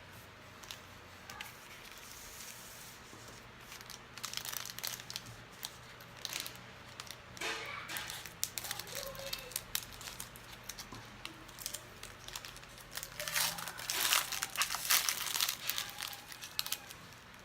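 Plastic wrapper of a Panini Prizm football card pack crinkling as it is torn open and handled. It comes in irregular bursts, busiest and loudest near the end.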